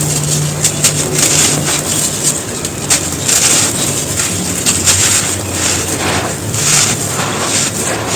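Soft, dusty bricks crunching and crumbling as they are crushed, a dense run of irregular crackles and gritty scraping strokes.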